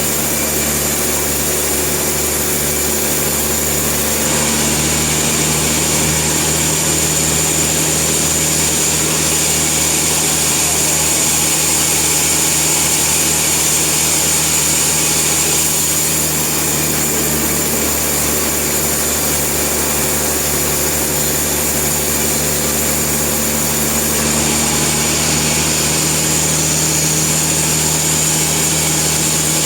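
Sawmill machinery running steadily while it saws a log, a constant engine or motor drone under a high, steady whine from the blade.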